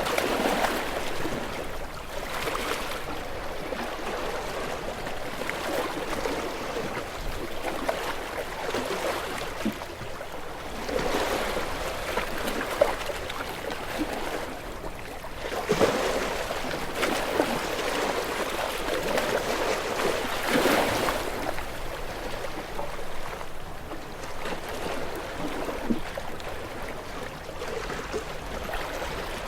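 Sea waves washing against shore rocks, swelling and falling back every few seconds.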